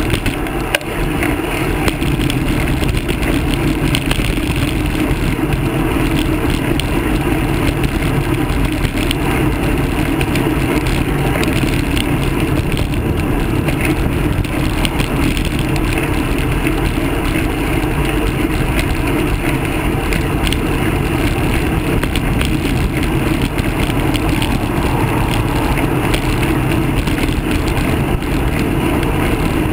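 Steady, loud wind rumble on the microphone of a handlebar-mounted camera on a road bike riding at speed.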